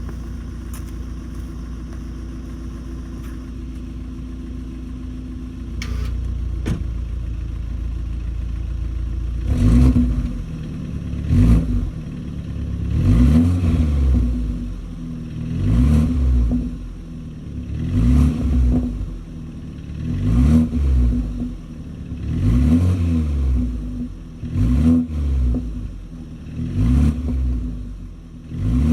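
BMW G20 330i's 2.0-litre turbocharged four-cylinder idling through its stock exhaust. About nine seconds in it starts being revved, roughly once every two seconds, each rev rising and falling away with pops and crackles from the exhaust.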